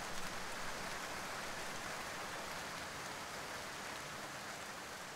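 Steady rain falling on forest foliage, an even patter of drops on leaves that eases slightly near the end.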